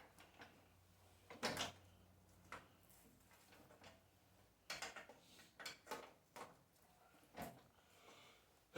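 Scattered faint clicks and knocks of something being handled, the loudest a short cluster about one and a half seconds in, with more of them a few seconds later; otherwise near silence.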